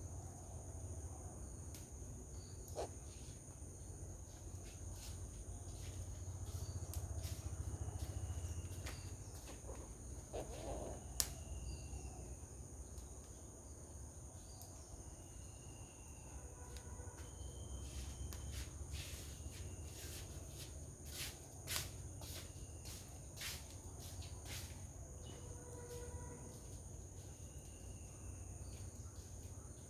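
Steady high-pitched insect chorus, with faint short bird whistles and scattered sharp clicks; the loudest click comes about eleven seconds in.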